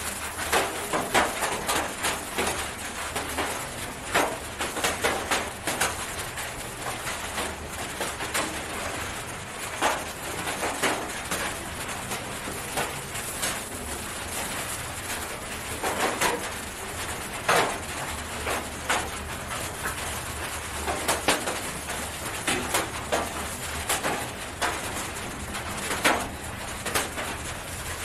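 Irregular crinkling and rustling of plastic gloves and cloth as a chicken is held and handled in a lap, with a few short soft calls from the chicken.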